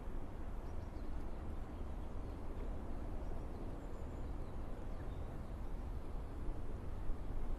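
Woodland park ambience: a steady low distant rumble of town traffic and aircraft, with a few faint, sparse bird chirps.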